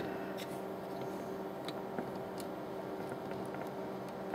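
Faint small clicks and taps of a circuit board being handled, over a steady low hum.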